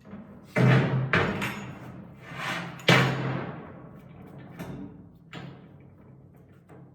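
A series of loud clunks and bangs, each dying away over a second or so; the loudest come about half a second and three seconds in.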